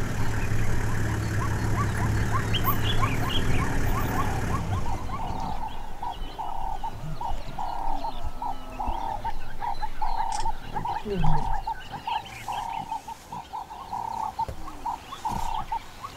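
A low, steady engine hum that cuts off abruptly about four and a half seconds in. After it comes a long, even series of short calls at one pitch from a small animal, about one and a half a second.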